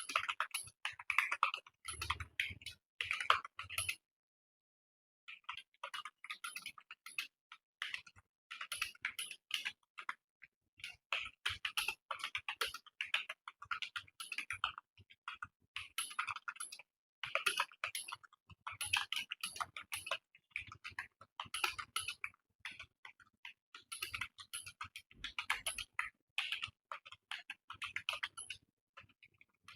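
Fast typing on a computer keyboard, a rapid stream of key clicks that stops for about a second a few seconds in, then carries on.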